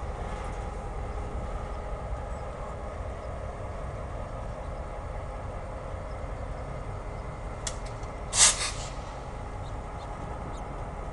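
Norfolk Southern diesel freight locomotive running as a slow local freight train moves past, a steady low rumble. About eight seconds in comes a brief, loud burst of hiss-like noise.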